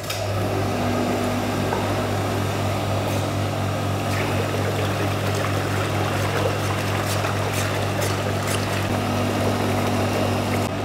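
Reverse-osmosis plant's electric RO pump switched on, starting abruptly and then running steadily with a low motor hum. It is circulating membrane-cleaning chemical solution from a bucket through the membrane and back, with water rushing and splashing into the bucket.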